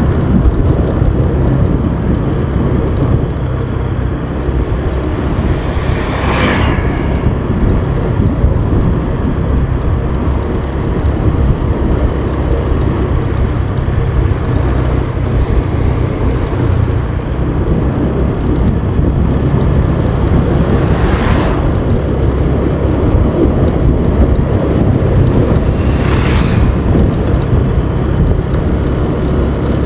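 Motorbike ride: a steady rush of wind on the microphone over the low running of the bike's engine, with three brief louder whooshes.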